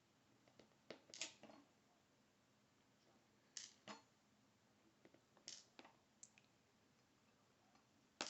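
Small brass key pins being tipped out of a Schlage Everest lock cylinder, clicking lightly onto a hard surface in a scattered series of about a dozen sharp ticks, mostly in small clusters.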